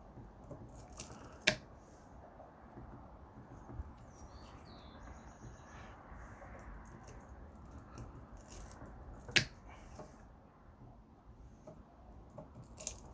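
Wire-cutter pliers snipping through copper: two sharp snaps about eight seconds apart and a smaller one near the end, with faint clicking and scraping of metal being handled in between.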